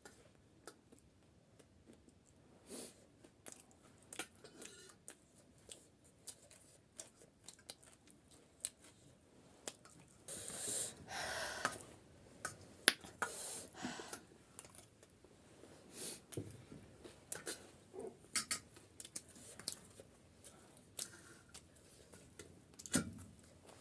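Close-up eating sounds of panipuri being chewed: scattered mouth clicks and crunches, with a cluster of louder crunchy bursts around the middle.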